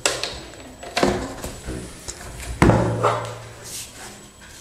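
Handling knocks as a corded rotary hammer drill is lifted out of its hard plastic carry case: three sharp knocks spaced about a second apart, the loudest about two and a half seconds in, followed by a brief low hum. The drill is not running.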